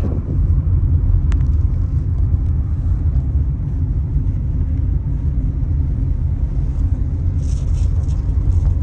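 Steady low rumble of a moving car.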